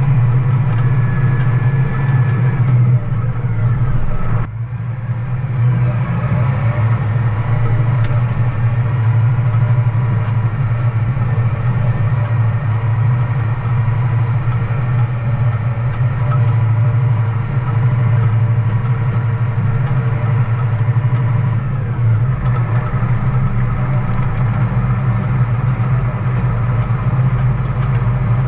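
Loaded grain truck's engine running steadily under way, a strong low drone. The level dips briefly about four and a half seconds in, as on a gear change.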